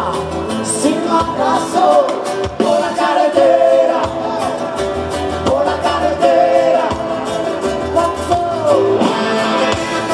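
Live band music over a big concert PA, heard from within the audience: a lead vocal singing over a steady drum beat and bass.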